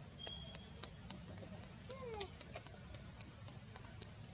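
Outdoor ambience: high, sharp ticks repeating evenly at about four a second over a faint steady high hum. About two seconds in, a short falling animal call sounds once.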